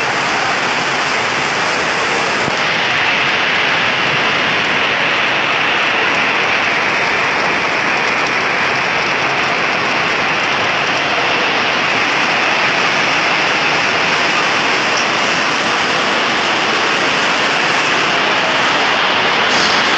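Steady, loud rain from a storm, falling without let-up.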